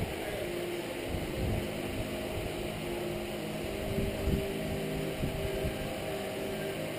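Propane burner running steadily under a cast iron pot of molten lead, a constant hum with a few low tones. There are a few soft knocks about four and five seconds in.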